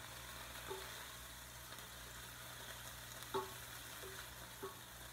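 Chicken pieces sizzling steadily in a hot sauté pan, with a few short knocks of a wooden spatula against the pan and bowl as the chicken is scooped out, the loudest a little past the middle.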